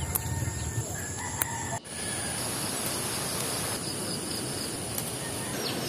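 A rooster crowing over steady outdoor background noise, which changes abruptly a little under two seconds in.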